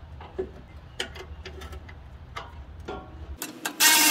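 Light metal clicks and clinks as a steel bracket tab is fitted into place, then near the end a cordless power ratchet starts up loudly, driving in the bolt.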